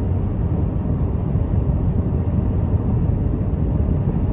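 Road and wind noise of a moving car: a steady low rumble.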